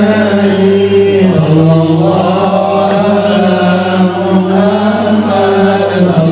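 Voices chanting Islamic devotional verses (shalawat) in a slow, drawn-out melody, with notes held long and gliding between pitches. A steady low hum lies beneath the chanting.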